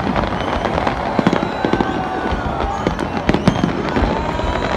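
Aerial fireworks display going off: a dense, unbroken run of bangs and crackles from shells bursting in quick succession.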